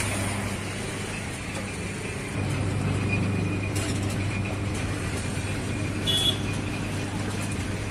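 Road traffic noise with a steady low engine hum that grows louder about two seconds in, and a brief sharp sound about six seconds in.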